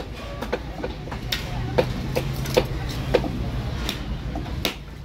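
A large knife striking and scraping a catla fish against a wooden chopping block: sharp, irregular knife strokes, about two a second, as the scales are scraped off. A steady low hum runs underneath.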